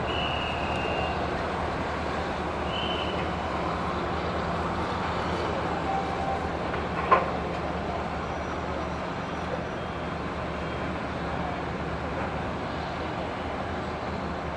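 Steady drone of vehicles and machinery on an airport apron, with a low hum underneath. A few short high tones sound in the first three seconds, and one sharp knock comes about seven seconds in.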